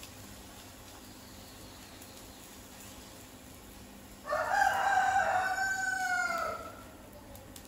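A rooster crowing once: a single drawn-out call of about two and a half seconds that drops in pitch at the end.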